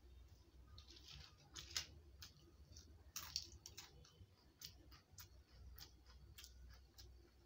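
Faint close-up eating sounds: small wet mouth clicks and smacks of chewing rice and curry, with fingers working the rice on the plate. Two slightly louder smacks come about one and a half and three seconds in.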